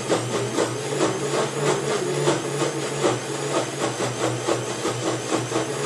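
Electric mixer grinder running with its steel jar, grinding soaked chana dal dry, without water, to a coarse paste. A steady motor hum with a regular rattle about three to four times a second.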